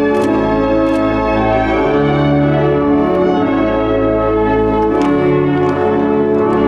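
Church organ music: held chords over low notes that change every second or two, with a few sharp bell-like strikes.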